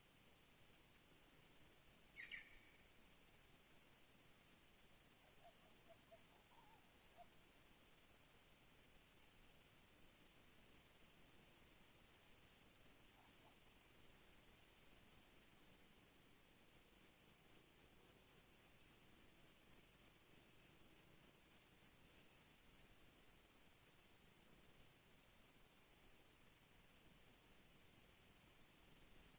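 Crickets chirping in a steady high trill, with a second insect joining in a pulsing chirp of about two beats a second in the middle and then stopping. A short bird chirp sounds about two seconds in.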